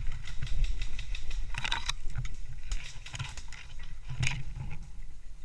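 Movement noise on a body-worn camera: a low rumble with irregular sharp clicks and knocks, the loudest about two and four seconds in.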